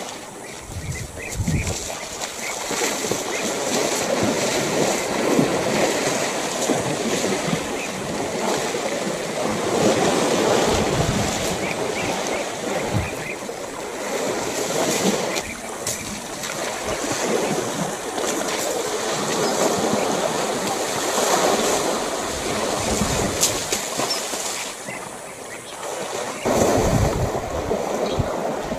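Water sloshing and splashing as African elephants wade and bathe in a waterhole. Wind buffets the microphone with a low rumble at the start and again near the end.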